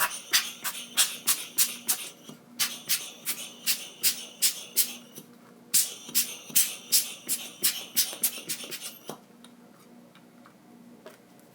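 Air pump blowing dust off a smartphone in quick hissing puffs, about four a second, in three runs with short pauses; the puffing stops about nine seconds in.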